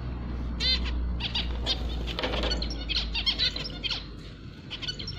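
Male zebra finch singing: a run of short chirps and buzzy notes, busiest in the first four seconds and thinning out toward the end.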